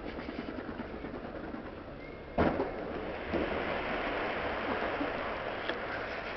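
Fireworks display: one sharp firework bang about two and a half seconds in, over a steady noisy, faintly crackling background.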